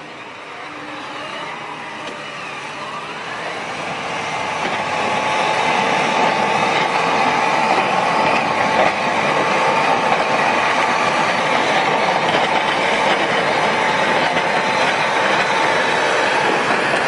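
Large John Deere tractor running under load as its front box plow pushes a heavy pile of snow across pavement, with a steady high tone over the engine and the sound of snow and plow. It grows louder over the first five seconds, then holds steady.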